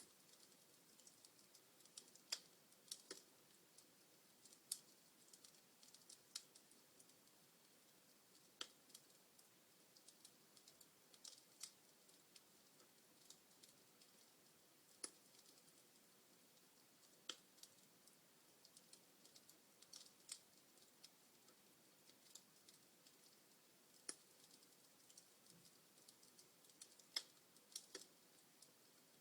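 Log fire crackling: irregular sharp pops and snaps of burning wood, some of them in quick clusters and a few seconds apart, over a faint hiss.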